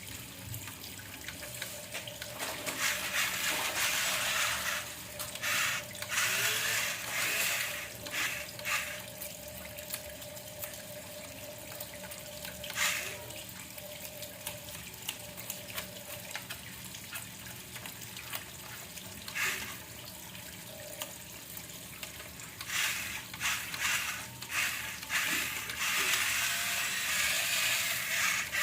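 Water splashing and churning as a remote-control toy bulldozer drives through it, in uneven surges, with a faint steady whine from its electric motor during roughly the first half.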